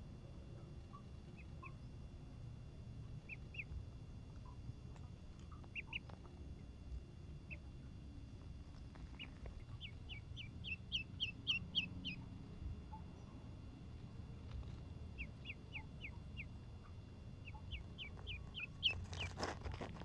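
Duckling peeping: short, high-pitched peeps, a few scattered at first, then quick runs of several in a row around the middle and again toward the end. A brief rustle near the end.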